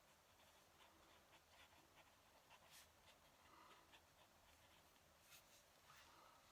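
Fountain pen nib scratching faintly across paper in short handwriting strokes.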